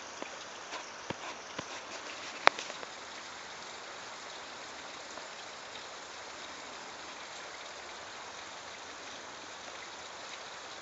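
Water from a partly frozen waterfall splashing and trickling in a steady hiss. In the first few seconds there are several sharp clicks or crunching steps, the loudest about two and a half seconds in.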